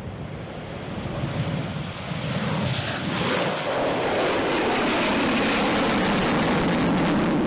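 Rockwell B-1B Lancer's four F101 afterburning turbofans at full takeoff power as the bomber climbs out past: a rushing jet noise that builds over the first few seconds, with a falling sweep in pitch as it goes by, then stays loud and steady.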